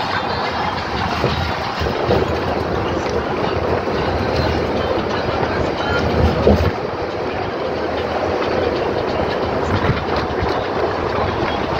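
Steady road noise and engine rumble of a moving vehicle, heard from inside, with light rattles and knocks throughout.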